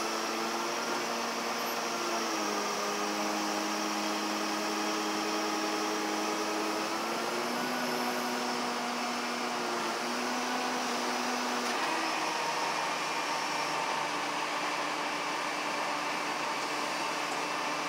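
Steady machine hum, a low drone whose pitch steps up and down several times.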